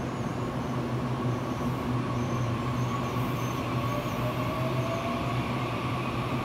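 Taiwan Railways EMU800 electric multiple unit pulling out of the station. A steady low rumble runs under an electric motor whine that rises slowly in pitch as the train gathers speed.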